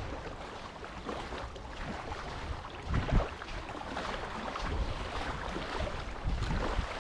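Footsteps crunching on a woodland trail, about one step a second, the heaviest about three seconds in, over a low rumble of wind on the microphone.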